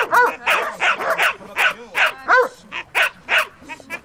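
A young Doberman barking in quick repeated barks, about two a second, at a trainer teasing it with a rag bite tug during early bite training.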